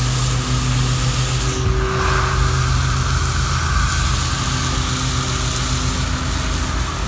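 Garden hose spray nozzle hissing steadily as water sprays onto grass, run to flush out sun-heated water until it comes out cold. A steady low hum runs underneath.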